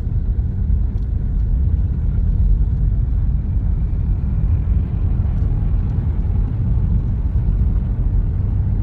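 Steady low rumble of a car's road and engine noise, heard from inside the moving car's cabin.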